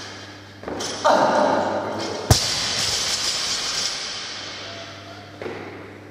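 A loaded barbell with rubber bumper plates is dropped from the top of a deadlift and hits the gym floor once, about two seconds in, with a sharp thud. A louder noisy stretch comes just before the impact, and a fading hiss follows it.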